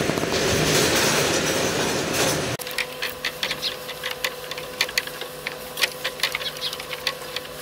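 Bamboo basket-making work: a dense rushing noise for the first couple of seconds, then after an abrupt change a steady hum under many irregular light clicks and taps of bamboo strips being handled.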